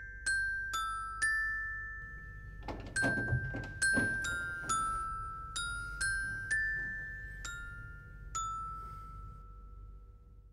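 Background music: a slow melody of single bell-like struck notes, each ringing and fading, the last one dying away near the end. A faint low hum sits beneath it, and a few duller knocks come about three seconds in.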